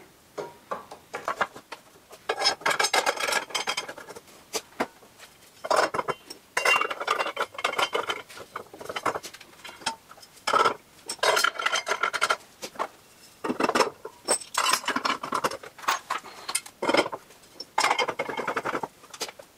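Steel strut channel and bolt hardware clinking, clattering and scraping in irregular bursts as the metal cross pieces are handled, set down on wooden boards and fitted over the bolts.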